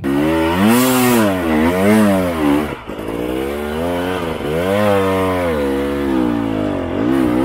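Husqvarna TE 300i two-stroke enduro engine revving hard under load on a steep rocky climb, its pitch rising and falling over and over as the throttle is worked, with a brief dip about three seconds in.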